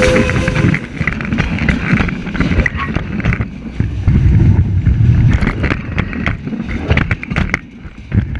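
Strasburg Rail Road #89, a 2-6-0 Mogul steam locomotive, rolling directly over a camera between the rails. The end of its three-chime whistle cuts off under a second in. Then comes a heavy rumble of steel wheels on the rails, with sharp clacks and clanks as the drivers and tender wheels pass overhead.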